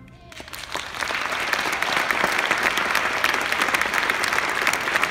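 Audience applause breaking out right after an orchestra's final chord dies away, building within the first second into dense, steady clapping.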